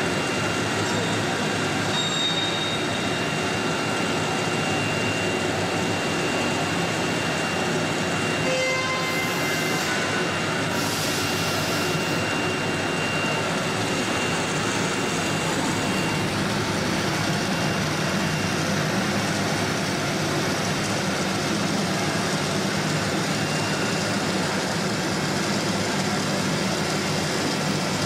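Steady machine noise from a three-spindle CNC router, with a thin high whine running through it. There are two short hisses about ten and twelve seconds in.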